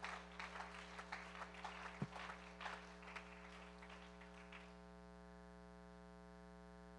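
Faint, scattered hand clapping from a congregation, thinning out and stopping after about four and a half seconds, leaving only a low steady hum.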